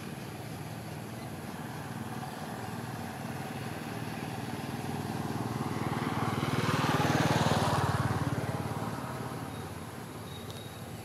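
A motor vehicle passing by off-camera: its engine and road noise grow louder, peak about seven seconds in, then fade away.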